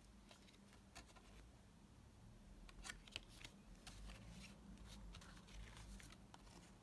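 Faint rustling and light ticks of paper and card as a collector banknote in its paper folder is handled and the folder is opened.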